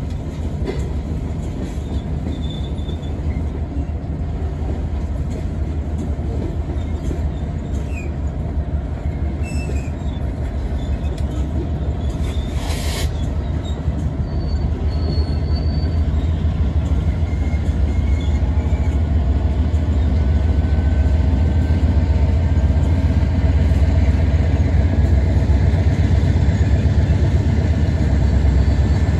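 Slow-moving freight train of coil cars rolling through a yard, with a low diesel locomotive rumble that grows louder as the locomotives draw near. Faint wheel squeals come and go, and there is one brief sharp burst of noise about 13 seconds in.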